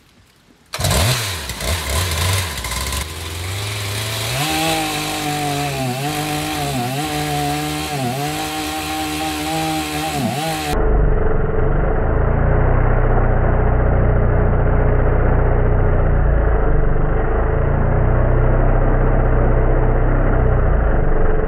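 Stihl 088 two-stroke chainsaw engine starting about a second in and driving a 3D-printed longtail propeller in a tank of water, revved up and down in short blips about once a second while the propeller churns and splashes the water. Later it runs steadily at high revs, with water spraying hard.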